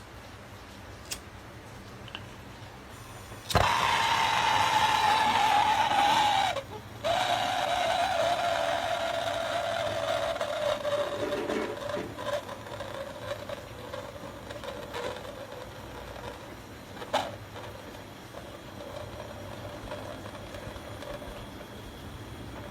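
A gas torch, after a couple of faint clicks, comes on suddenly about three and a half seconds in with a loud hiss and a whistling tone that slowly falls in pitch. It cuts out briefly near seven seconds, then resumes and grows gradually quieter. It is heating the aluminium evaporator around the hole so the aluminium brazing rod will flow and bond.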